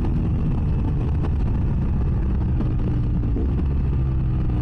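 BMW F800S's parallel-twin engine running at fairly steady revs through an open GPR Furore exhaust with the dB killer removed, heard from inside the rider's helmet.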